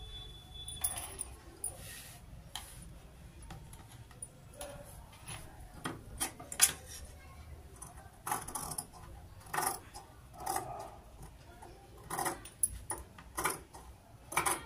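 Large steel tailor's shears cutting through folded cotton lining cloth: separate snips about one a second in the second half. Before that, the cloth is handled and unfolded, with light jingling clinks of bangles and a sharp click about six seconds in.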